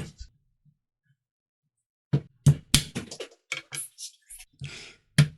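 A kitchen knife striking ginger on a cutting board about a dozen times in quick, irregular knocks, smashing it into smaller pieces before chopping. The knocks start about two seconds in, and there is a short scrape near the end.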